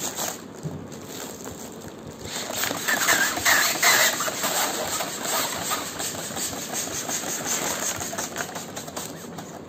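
Handheld plastic balloon hand pump worked in repeated strokes, pushing air into a foil letter balloon as it fills. Louder for a couple of seconds in the middle.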